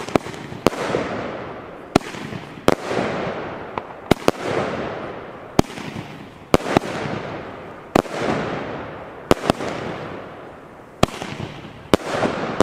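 Funke Kamuro firework battery firing shot after shot, about one sharp bang a second. Each bang is followed by about a second of fading crackle as the glittering stars fall.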